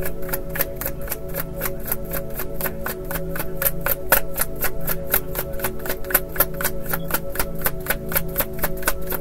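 A tarot deck being shuffled by hand: a quick, even run of card clicks, about five a second, over soft background music with steady held notes.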